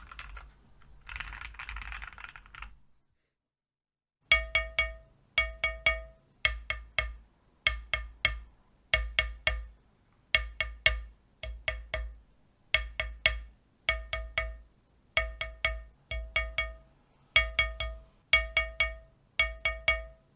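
Mechanical keyboard typing on lubed JWICK Black linear switches for about three seconds. After a short pause, the Keychron Q1's aluminium case is struck over and over in quick groups of three, about one group a second. Each strike leaves a short ringing ping as different neoprene and foam case paddings are compared.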